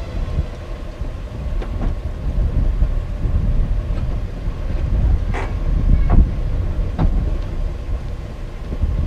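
First-generation Toyota RAV4 running as it pulls up and stands at the kerb, a low uneven rumble with wind buffeting the microphone. A few sharp clicks and knocks come through it.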